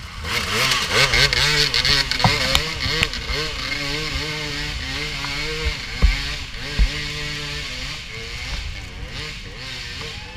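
Dirt bike engines revving and easing off in uneven surges as riders climb a muddy trail, with a steadier low engine note underneath.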